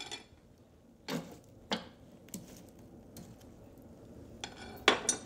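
A metal fire poker clinking and knocking against a cast-iron wood-burning stove about five times, the loudest knock near the end, with a brief metallic ring after it.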